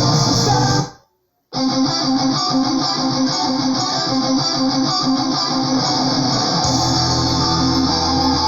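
Neoclassical melodic metal recording with guitars. About a second in it drops to silence for about half a second, then the music starts again.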